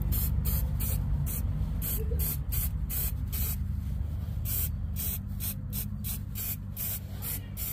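Aerosol spray can of varnish being sprayed in many short hissing bursts, about two to three a second, with a brief pause just after the middle, over a steady low rumble.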